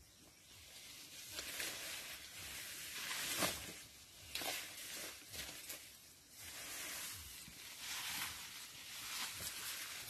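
Corn leaves and stalks rustling and crackling in swells of a second or two as a person pushes through the rows carrying an armful of harvested corn plants.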